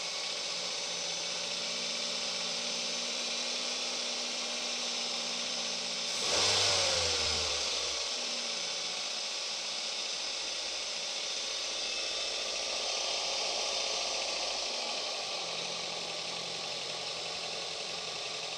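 Daihatsu Gran Max 1.3-litre engine idling, revved briefly about six seconds in and settling back. It runs smoothly with its valve clearances reset to standard, the earlier rough noise from over-loose valve lash gone.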